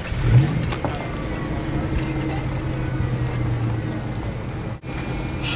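A motor running steadily with a low, even hum, starting with a brief louder burst just after the beginning.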